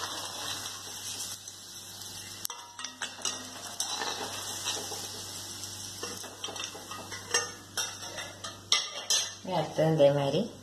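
Hot oil sizzling in a steel kadai around a frying battered pappadam, then a perforated steel slotted spoon clinking and scraping against the kadai in a series of sharp clicks as the vada is lifted out. A voice speaks near the end.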